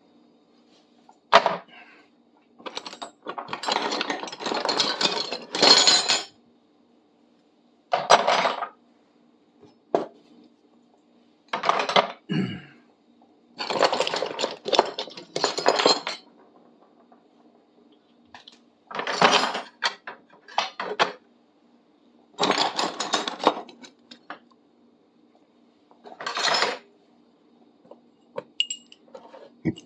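Metal hand tools clattering and clinking against each other in about a dozen short, separate bursts as they are handled and set down. A faint steady low hum runs underneath.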